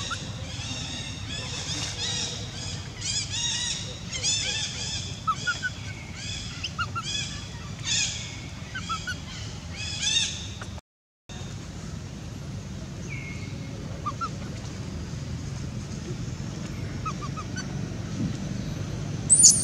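Repeated short, high-pitched animal calls, about one or two a second, through the first half. After that only a few fainter chirps are heard, then one sharp, loud call near the end.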